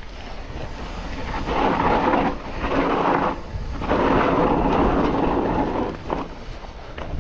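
Mountain bike rolling down a dry, dusty dirt trail: tyre rumble and rattle over dirt and rocks, mixed with wind on the camera microphone. It comes in several swelling surges with short quieter dips between them.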